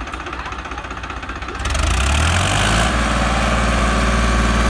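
Farmtrac 60 tractor engine running, then suddenly louder about a second and a half in, with a burst of hissing for about a second before it settles into a steady deep run.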